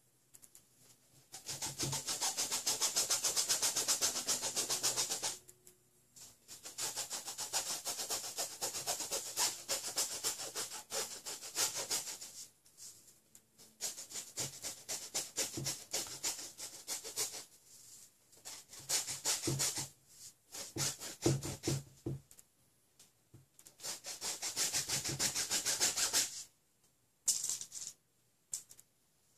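Paintbrush scrubbing oil paint onto a stretched canvas in quick back-and-forth strokes, which rasp in spells of a few seconds with short pauses between.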